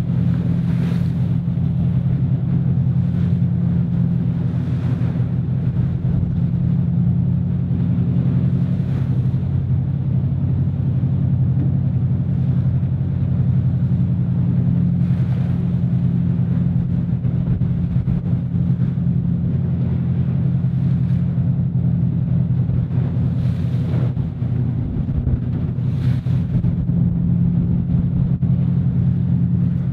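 Steady drone of a boat's engine running under way, with water splashing against the hull now and then.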